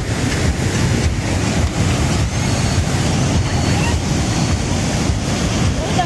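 River rapids and a waterfall rushing over rocks: a loud, steady wash of white water, with wind buffeting the microphone.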